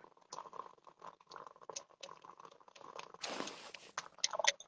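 Faint rustling and scattered clicks, with a short rush of noise a little past three seconds in.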